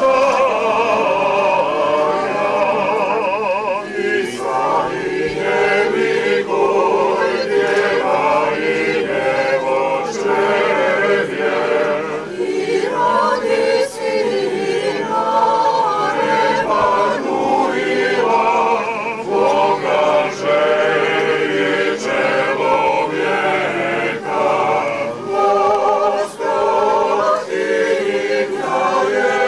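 A choir sings an unaccompanied Orthodox church chant, with several voices holding long notes.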